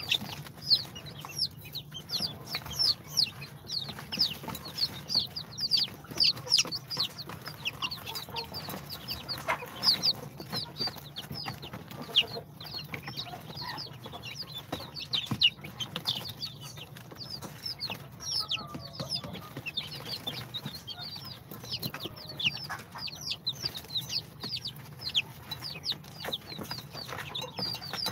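A brood of day-old chicks (Brahma, bantam Cochin, Sultan and İspenç) peeping constantly: many short, high, falling peeps from many birds overlapping, over a steady low hum.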